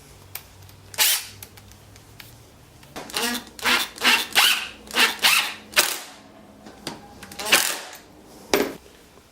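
Screws being driven into small pieces of Baltic birch plywood: a run of short, sharp grinding bursts, clustered in the middle, with a few single ones before and after.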